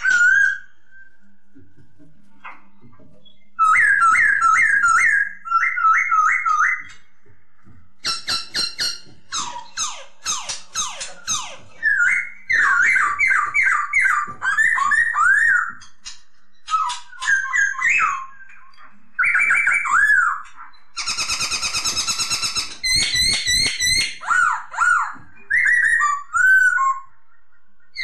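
Poksay Hongkong laughingthrush singing a loud, varied song of whistled phrases: runs of repeated notes, fast trills and rising and falling slurred whistles, broken by short pauses.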